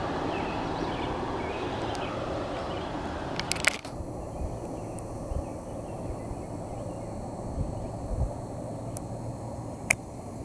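A train passing on the main line, a steady rumble of wheels on rail. About four seconds in it drops off abruptly after a couple of clicks, leaving a fainter low rumble with occasional ticks.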